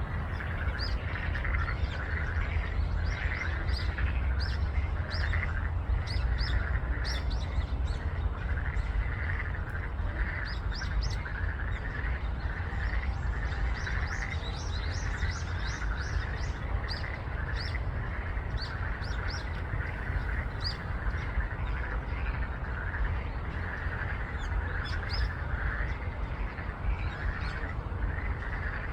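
Birds chirping in short high calls over frogs calling in a steady train of repeated croaks, with a constant low rumble underneath.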